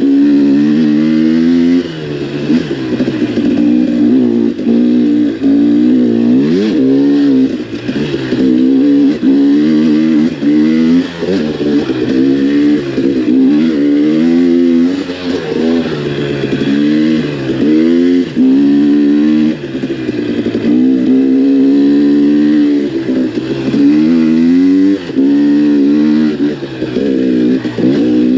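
KTM XC-W dirt bike engine under way on a rough trail, revving up and easing off over and over with the throttle. The pitch rises and falls continuously, with short drops in loudness every few seconds as the rider backs off.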